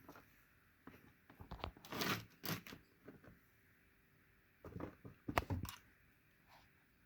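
A kitten handling a toy, making scattered rustles, scrapes and light taps in two clusters, the first about a second in and the second near the end.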